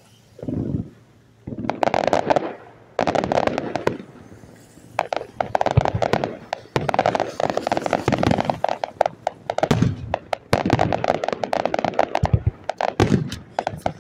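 Fireworks display: shells bursting with rapid crackling in several dense volleys, with a few low booms among them.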